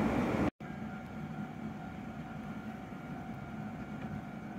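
Stationary electric commuter train idling, a steady hum from its roof and underfloor equipment, which cuts off abruptly about half a second in. A quieter steady background follows, carrying a faint steady whine.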